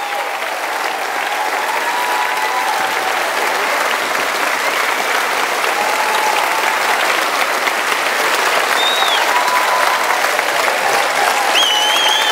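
Crowd applauding steadily, with a few faint voices and a high-pitched call near the end.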